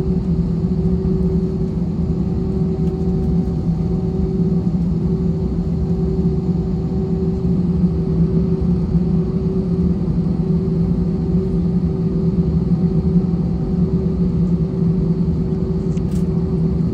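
Airbus A320-200 jet engines running with a steady rumble and a constant low hum.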